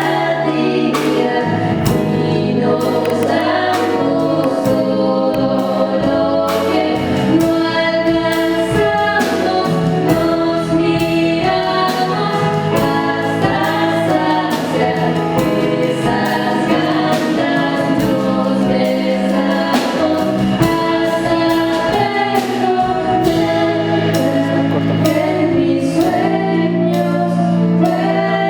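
A vocal group singing in harmony, several voices holding chords together, over a steady percussive beat.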